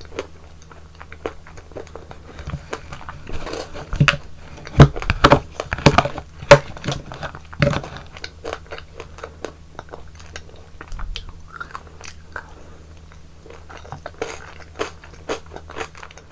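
Close-miked eating sounds of someone eating yogurt ice cream: bites and chewing with many sharp mouth clicks, loudest and densest between about four and eight seconds in.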